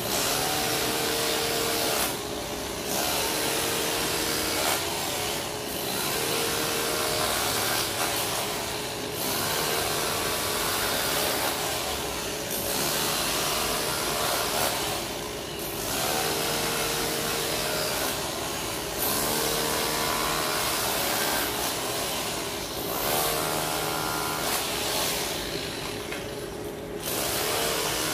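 Power cutter running and cutting into the road surface, its sound easing off briefly about every three seconds as the cut is worked, then picking back up.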